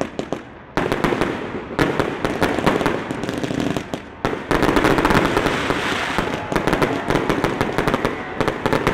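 Fireworks going off in a rapid, dense run of crackling pops and bangs, densest and loudest from about halfway through.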